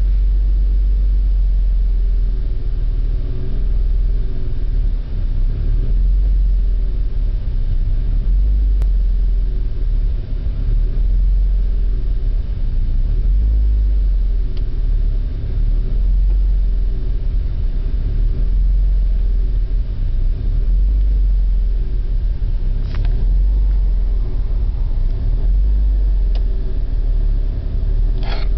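BMW E36 engine idling rough, its steady low running wavering unevenly: a rough idle which the owner traced to a faulty oxygen sensor. Two brief clicks come late on.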